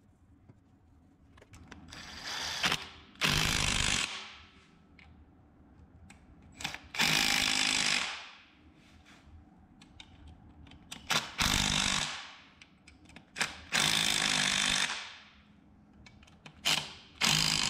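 Handheld power driver run in five short bursts a few seconds apart, each trailing off as the trigger is let go: driving in the bolts of the Honda TRX200SX engine case.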